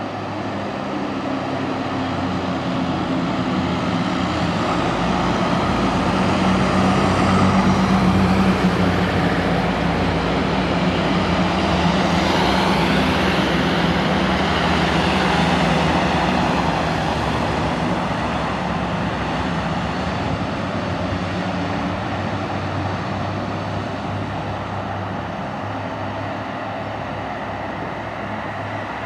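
A convoy of fire engines drives past: a VW Transporter, a Mercedes Unimog and two Mercedes Atego trucks. Their engines and tyres make a steady drone that builds to its loudest about halfway through and then slowly fades as the vehicles move away.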